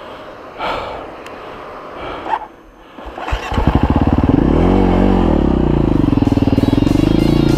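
Husqvarna FE 350 S dirt bike's single-cylinder four-stroke engine, quiet at first, comes up loudly about three seconds in and keeps running with the revs rising and falling.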